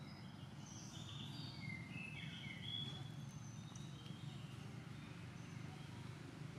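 Faint outdoor ambience: a steady low background noise with short, high chirping calls scattered through the first half.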